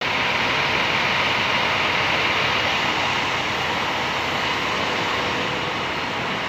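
Intercity coach idling close by: a steady, even rush of engine noise with no breaks or changes in speed.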